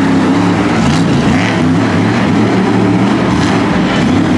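Monster truck engine running loud under heavy throttle, its pitch rising and falling as the driver works the throttle.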